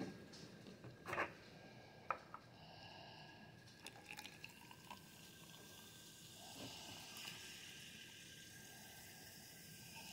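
Water being poured slowly from a paper cup into a plastic tube, a faint trickle, with a few light taps around the first and second seconds.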